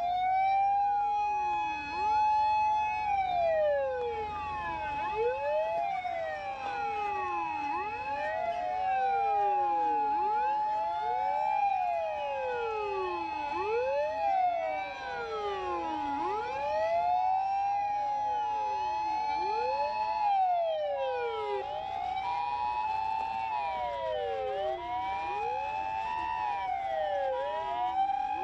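Several Japanese fire and rescue vehicle sirens wailing together in a convoy, each rising, holding its note, then falling, the cycles overlapping. From about twelve seconds in, an ambulance's two-tone hi-lo siren alternates steadily beneath them.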